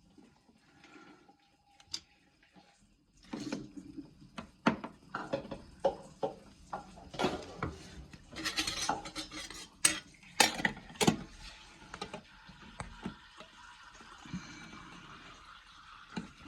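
Irregular clinks, taps and scrapes of a screwdriver, screws and a switch with its cover plate being handled and fitted. They start about three seconds in and run on unevenly, thinning out near the end.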